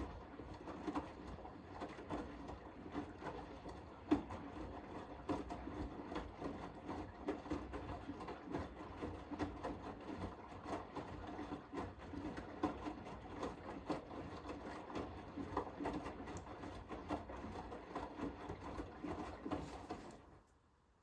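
Hoover H-Wash 500 front-loading washing machine turning its drum during a Cotton 60 wash: a steady motor hum with the clatter and swish of wet laundry tumbling, stopping suddenly just before the end as the drum pauses.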